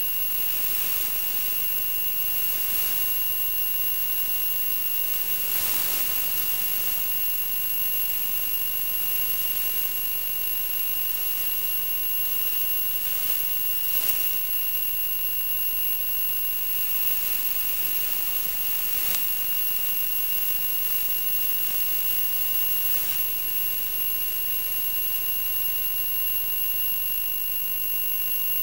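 Steady hiss with a constant high-pitched whine and a few brief crackles, picked up by the Bixler 2 FPV plane's onboard video-link audio in flight.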